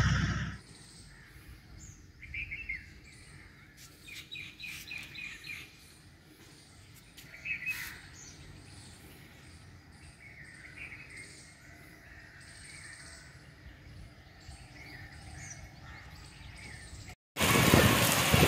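Birds chirping faintly over a quiet background, with a quick run of repeated chirps about four seconds in and scattered single calls. Near the end, loud rain and water noise cuts in suddenly.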